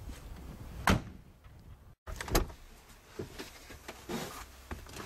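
A car door slamming shut about a second in. After a brief gap comes a second thud, then a few lighter knocks and rustles of someone moving into the car.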